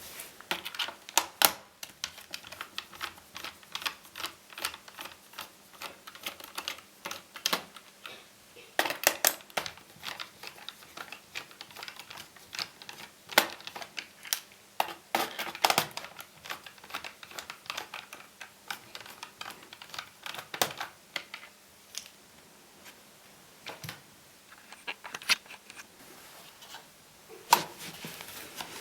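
Irregular small clicks and taps of a screwdriver and screws working on the plastic bottom case of an Acer Aspire 5732ZG laptop as its chassis screws are undone, with busier clusters of clicks now and then.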